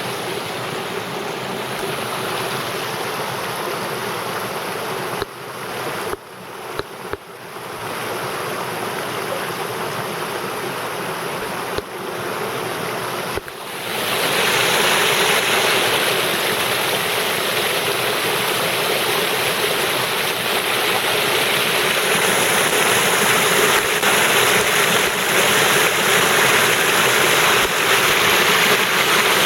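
Creek water rushing steadily over and through a stacked cinder-block dam. It briefly drops away a few times in the first half, then grows louder from about halfway through.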